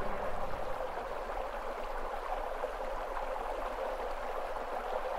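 Steady rushing of flowing water, like a stream, an even hiss with no pauses or separate events.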